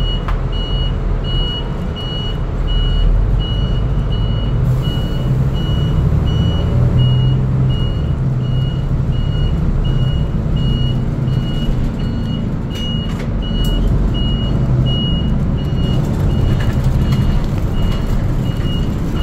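City bus engine running as the bus drives, heard from inside the cabin, with a high electronic beep repeating about three times every two seconds.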